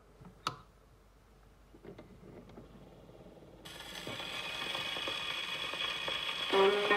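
Victor Victrola acoustic phonograph being set playing: a few sharp handling clicks, then the needle drops onto the spinning 78 rpm record a few seconds in and steady surface hiss and crackle start and grow louder. Guitars of the recording begin to play near the end.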